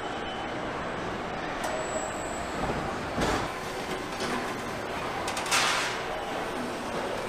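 Assembly-line factory noise: a steady din of machinery, with a clank about three seconds in and a short hiss about five and a half seconds in.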